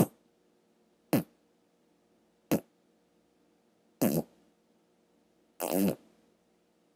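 Beatboxer's mouth doing slow side sucking kicks: five separate pops made by opening one corner of tightly pressed lips while the tongue pulls back. The first three are short pops; the last two are drawn out into a brief fart-like lip buzz.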